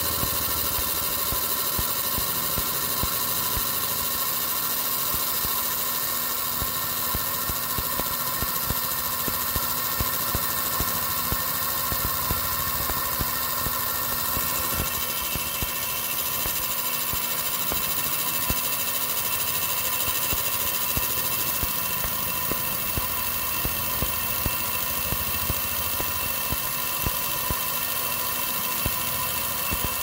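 Laser engraving machine working on a sterling silver belt buckle: a steady machine hum with several high whining tones over it and a dense patter of fine ticks. The pitch of the tones shifts about halfway through.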